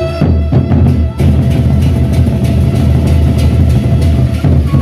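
A Sasak gendang beleq ensemble playing: the big double-headed barrel drums come in at the start, beaten in a dense, driving rhythm with sharp metallic cymbal strokes, over a long held melody note.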